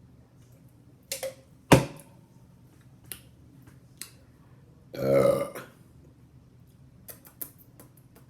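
A woman's belch, one low, pitched burp about half a second long, about five seconds in. A sharp knock near two seconds in is the loudest sound, with a few light clicks and taps around it.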